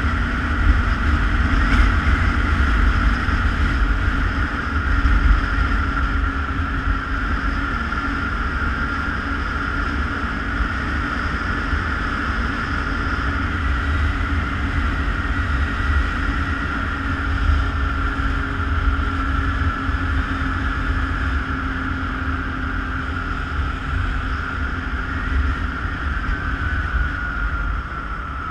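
ATV engine running steadily while riding, with a steady high whine that drifts slightly up and down, over low wind rumble on the microphone.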